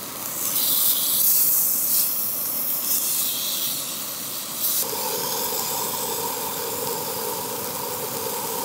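Lamb medallions sizzling in coconut oil in a small frying pan on a canister gas stove, the hiss surging as the meat is turned. About five seconds in, the sizzle settles to a steadier hiss and a steady hum comes in.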